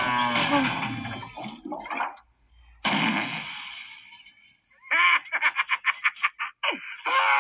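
Animated-film soundtrack heard through a device speaker. Sound effects fade as a cartoon tractor tips over, a sudden sound comes after a short gap, then a cartoon character gives a quick burst of rapid laughter, about eight pulses a second.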